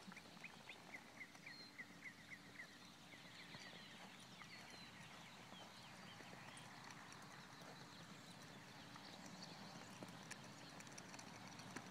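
Faint hoofbeats of a horse being ridden. In the first few seconds a run of quick, high chirps sounds over them.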